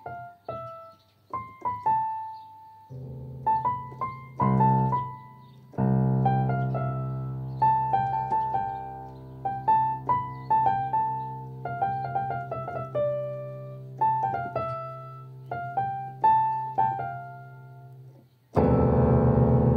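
Electronic keyboard played slowly by a learner: a simple melody of single notes over a held low chord, with a loud, dense chord near the end.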